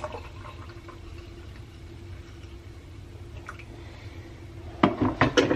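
Hot coffee pouring into a glass mug over a steady low hum. A quick run of clinks and knocks follows near the end as the glass is handled.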